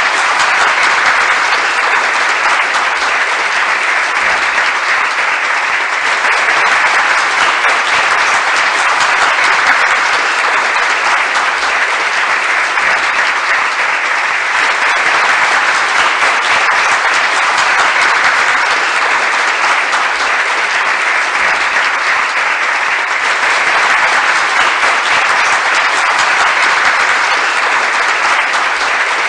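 A large crowd applauding, dense and sustained at a steady level with no pauses.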